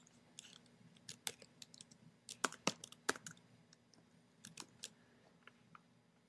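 Computer keyboard typing: light, irregular keystrokes, densest about two to three seconds in and thinning out near the end, as a search is typed in.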